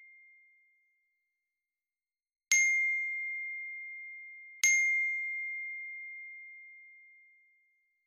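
Two chat-message notification dings about two seconds apart, each a single clear high bell-like tone that rings and fades slowly. The fading tail of an earlier ding dies away in the first second.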